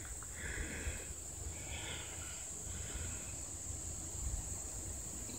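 Steady high-pitched insect chorus in the woods, with soft footsteps on a dirt trail and low rumble from the handheld microphone.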